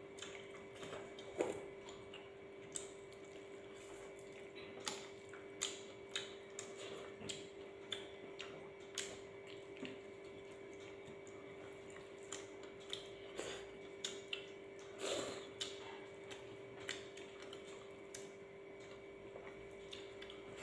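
Eating by hand: scattered wet clicks and smacks of chewing and of fingers working rice, over a steady faint hum.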